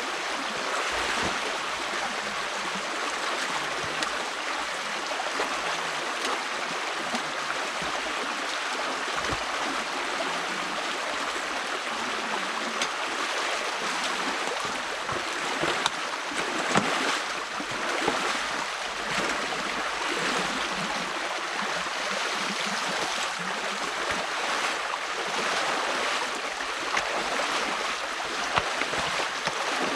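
Stream water rushing steadily through an opening in a beaver dam, with a few brief sharper splashes over the flow.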